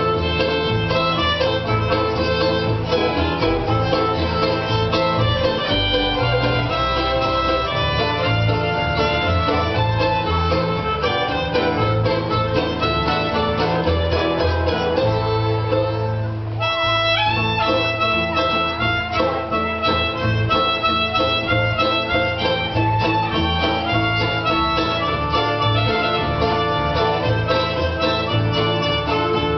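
Acoustic jazz band playing an instrumental tune: a lead melody of held notes over plucked strings and a bass line.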